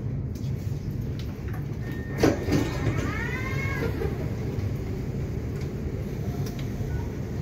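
Suburban electric train heard from inside a moving carriage, running with a steady low rumble. About two seconds in comes a sharp knock, then a short squeal that rises and falls in pitch over about a second.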